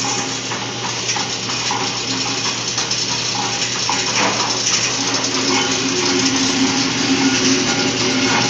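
Motor-driven coffee-processing machine running, a steady hum under a continuous dense rattle.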